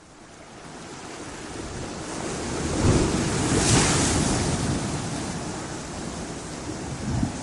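Sea waves crashing against stone walls, the surf swelling up to a big crash about three to four seconds in and then washing back, with wind rumbling on the microphone.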